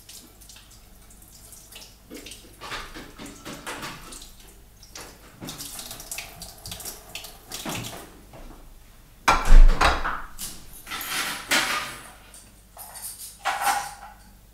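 Kitchen tap running into a sink while dishes are washed, with crockery clinking and knocking. A loud, heavy knock comes about two-thirds of the way through.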